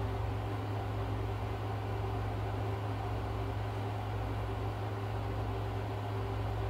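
Steady low hum with a faint hiss underneath, unchanging throughout.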